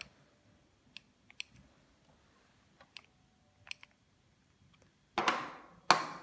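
Light plastic clicks of a wireless doorbell's receiver and its buttons being handled and pressed, about six scattered clicks. Near the end come two louder noisy bursts, each dying away within about half a second.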